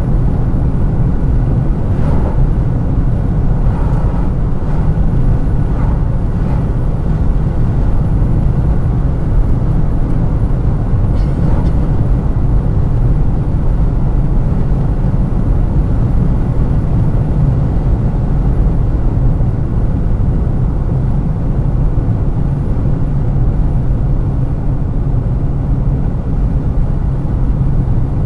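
Steady in-cabin road noise of a car cruising at highway speed: a low, even rumble of tyres and engine.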